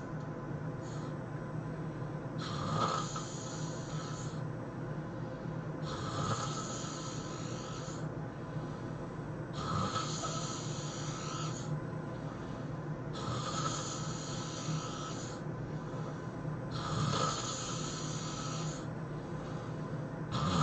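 A person snoring in sleep, with a rasping, hissy breath about every three and a half seconds, each lasting about two seconds.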